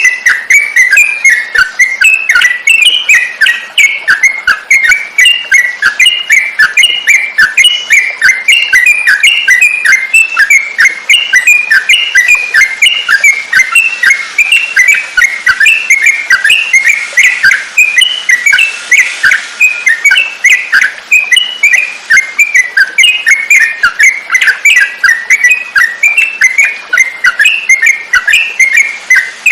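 Yellow-vented bulbul (trucukan) song: a fast, unbroken stream of short, loud chirping notes.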